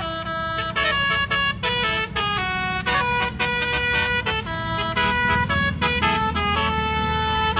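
An Indonesian bus's basuri telolet horn, a set of electric horns playing a quick melody of changing notes, with the bus engine running underneath.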